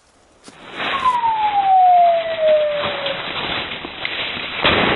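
Rustling and brushing through dry undergrowth, with one whistle-like note sliding down in pitch over about two seconds. Near the end comes a sudden loud report: a shotgun fired at a flushed woodcock.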